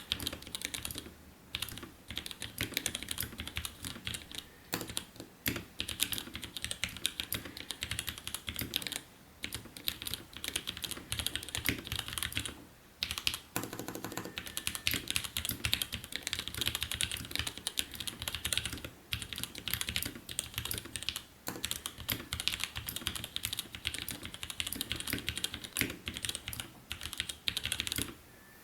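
Fast continuous typing on a 60% mechanical keyboard with lubed 55 g Gateron Clear linear switches in an acrylic case, fitted with GMK doubleshot ABS keycaps: a rapid stream of key clacks with brief pauses between bursts.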